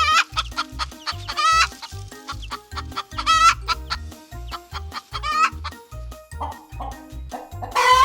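Chicken clucking calls, about five short wavering calls roughly every two seconds, over background music with a steady beat.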